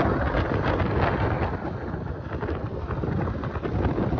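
Wind buffeting the microphone on a speedboat under way, a steady rushing noise over the rush of water and the boat's motor.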